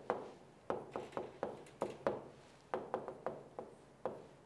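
Pen tapping and knocking on the glass face of an electronic whiteboard as characters are written: about a dozen light, irregular taps, up to several a second, each with a short ring.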